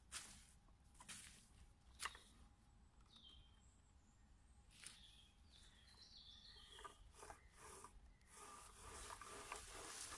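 Faint rustling and scraping of a rope being pulled through the log frame of a wooden chair by hand, with a few soft clicks. Faint bird chirps come in around the middle, and the rope rustle grows louder near the end.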